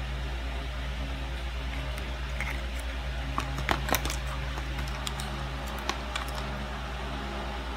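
Small sharp clicks and taps from plastic cutlery and food packaging being handled, a quick run of them in the middle and a few more after, over a steady low electrical hum.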